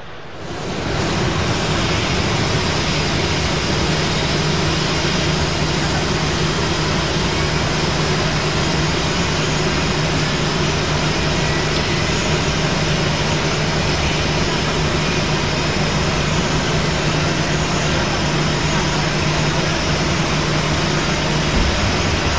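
Jet aircraft engines running steadily on an airfield: a loud, even rush of noise over a steady low hum and a faint high whine, coming in abruptly just after the start.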